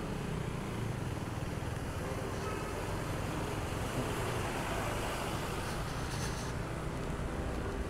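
Steady riding noise of a KTM Duke 390 motorcycle on a wet road: its single-cylinder engine running under a hiss of tyres on wet tarmac.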